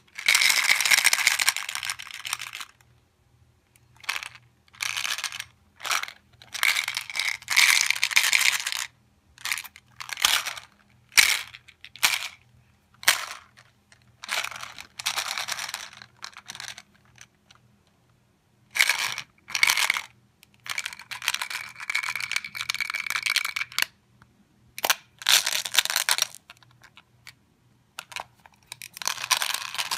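M&M's candies clattering and rattling against a hollow plastic toy shark as it is jostled about, in irregular bursts with short pauses between them.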